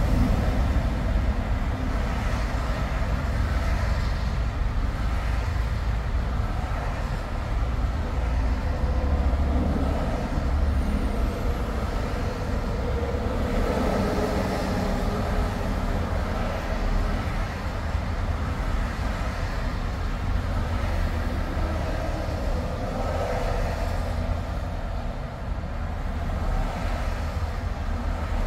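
Highway traffic noise: a steady low rumble of tyres and engines on the interstate, swelling a few times.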